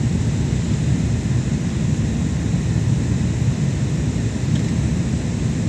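Steady low roar of an airliner in flight as heard inside the passenger cabin: jet engines and rushing airflow, with a little hiss above it.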